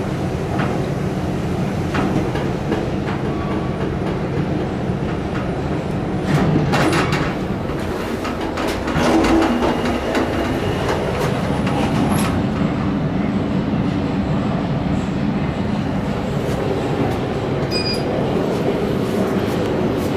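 1975 KONE inclined traction elevator car running along its incline: a steady rumble with occasional clicks and knocks.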